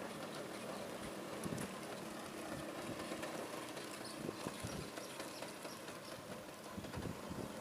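Bajaj Classic scooter engine running steadily in first gear while the scooter is ridden, heard faintly.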